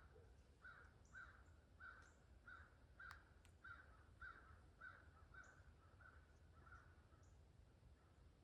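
Faint bird calling over and over, about two short calls a second, dying away near the end, with a few high chips from other birds. A single sharp click about three seconds in.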